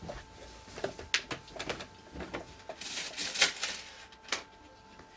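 Scattered light clicks and knocks with a burst of rustling about three seconds in, from someone rummaging off to the side for coins, over a faint steady whine.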